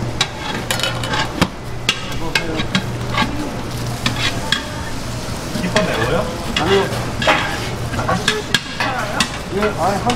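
Cooked rice being scooped out of a rice cooker pot and spread by gloved hands over a sheet of laver on a bamboo mat: irregular scraping, rustling and light clicks. Under it runs a steady low hum and a sizzling hiss like meat frying on a griddle.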